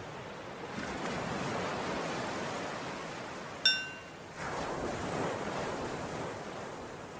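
Recorded ocean surf washing in two slow swells, with a bell struck once a little past halfway and ringing briefly: the cue to switch between breathing in and breathing out.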